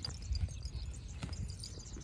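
White zebu cow grazing close by, tearing off mouthfuls of short grass in a few irregular crisp pulls, with soft chewing in between.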